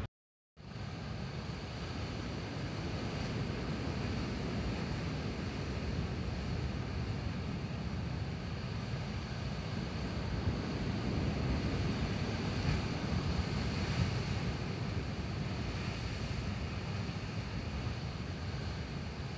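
Rough sea surging and breaking as white surf against rocky cliffs below, mixed with wind buffeting the microphone. The sound drops out for about half a second at the start, then runs on as a steady wash that swells a little louder around the middle.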